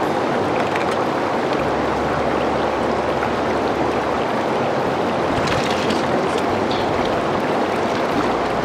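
The Medicine Bow River rushing steadily, with a few faint clicks about two-thirds of the way through.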